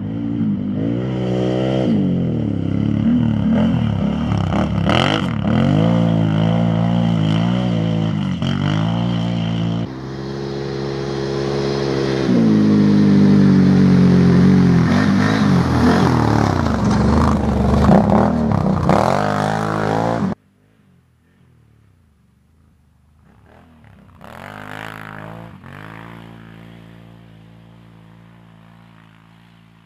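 Can-Am Renegade 1000 quad's V-twin engine revving hard under acceleration, its pitch climbing and dropping repeatedly with the throttle and gear changes. About two-thirds of the way in, the loud engine cuts off abruptly, and a fainter engine is heard further off.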